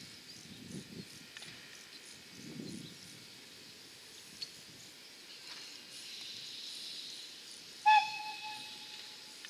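Steam locomotive standing with a steady hiss of steam, then one short blast on its whistle about eight seconds in: a single clear tone that starts sharply and dies away over a second or so.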